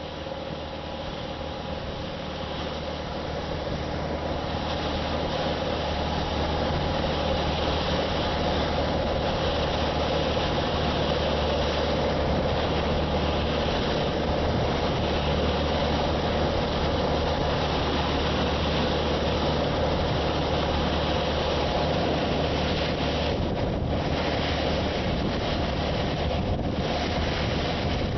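Boat's outboard engine running, growing louder over the first few seconds as the boat comes up to speed, then holding a steady drone, with wind on the microphone.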